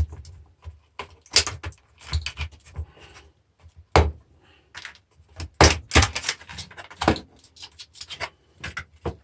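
Irregular clatter of metal and plastic parts from a dismantled battery charger being handled and set down on a workbench: scattered clicks and knocks, one sharp knock about four seconds in and a quick run of them a little later.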